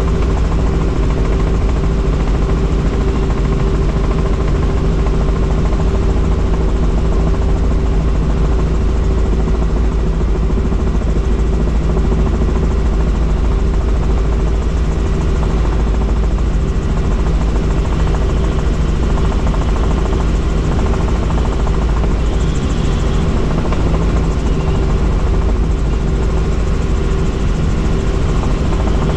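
Helicopter in flight: a loud, steady drone of rotor and engine with a constant low hum that does not change.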